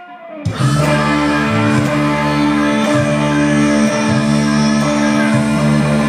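Electric guitar rock music. After a brief drop to quiet at the start, a sustained ringing chord comes in about half a second in, over a pulsing low bass line.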